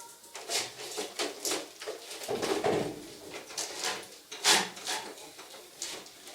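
Handling noise from an air conditioner unit being taken down: a string of knocks, clunks and rustles, about two or three a second, with a duller thud-like stretch a little past the middle.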